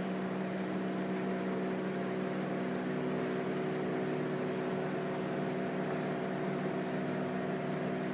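A steady mechanical hum with several pitches layered together, holding an even level.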